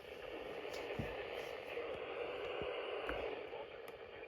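Radio receiver static: a steady, narrow-band hiss like a weak broadcast signal, with a couple of soft low thumps about one and three seconds in.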